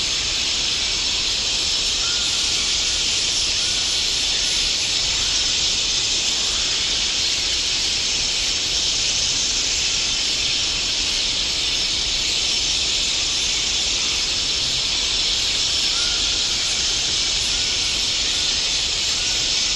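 A steady, even hiss with no change in loudness, with a few faint short chirps about two seconds in and again near the end.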